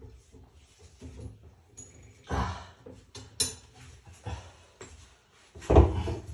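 A wrench knocking and clinking against brass drain fittings in a few separate strikes, one with a short metallic ring. A louder thump comes near the end as the worker gets up off the tile floor in knee pads.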